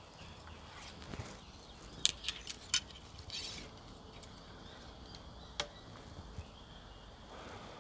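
A quick run of about four sharp, light clicks and taps about two seconds in, then a single click a little past the middle. The clicks fit archery gear, the recurve bow and its arrows, being handled between shots.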